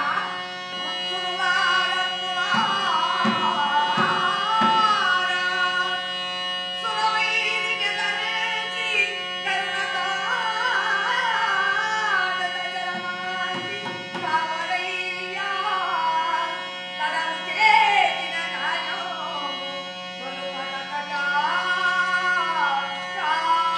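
Sung narration in Carnatic style from a leather shadow-puppet Ramayana performance: a voice sings long, wavering melodic phrases over a steady drone, with light percussion.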